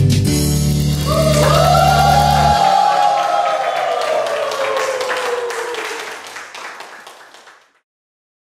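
Choir singing the final held note of a song over a guitar backing track; the accompaniment stops about two and a half seconds in, and the voices' long chord slowly falls in pitch and fades out near the end.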